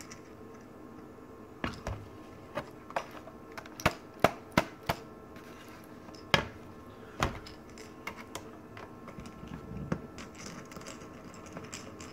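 Irregular sharp clicks and taps of a screwdriver and small plastic and metal parts being handled as a Dell Mini 910 netbook is taken apart. There are about ten distinct clicks, the loudest in the middle, then only light ticks near the end, over a faint steady hum.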